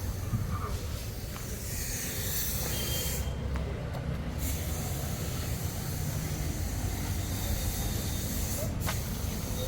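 Riding noise of a motorcycle in traffic: a steady hiss of wind on the microphone over a low engine and road drone. The hiss drops away briefly about three seconds in.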